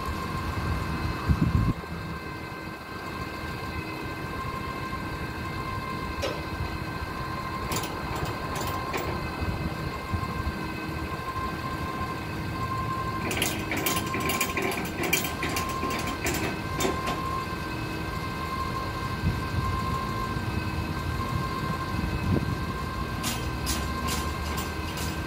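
Hyundai propane forklift engine idling steadily, with clusters of sharp clicking and rattling about halfway through and again near the end as a ratchet strap on the truck's load is worked.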